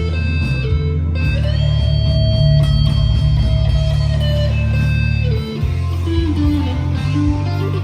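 Vintage V100 electric guitar played on an amp's overdrive channel: sustained distorted notes, with one note bent up about a second and a half in and held for a couple of seconds, then a short run of notes near the end.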